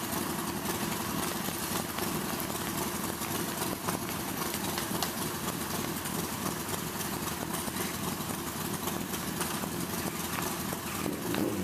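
Motorcycle engines idling steadily.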